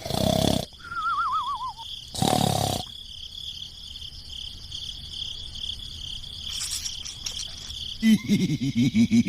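Cartoon sound effects over a steady high insect-like chirr. There is a short noisy whoosh at the start, a wobbling whistle that falls in pitch, and another whoosh about two seconds in. Near the end comes a quick run of loud, low pitched stutters.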